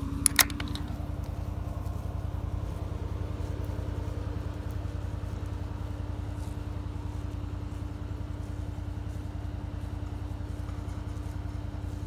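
An engine running steadily throughout, with a low rumble and one even tone above it. About a third of a second in come two sharp metallic clicks in quick succession as the hook of an electric fence gate handle is worked at its post.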